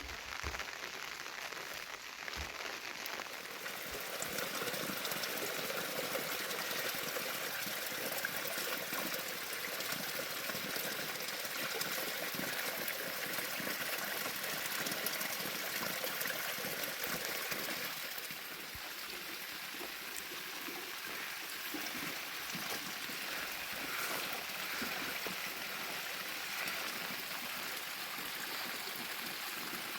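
Steady running water, a continuous even rush, easing slightly a little past the middle.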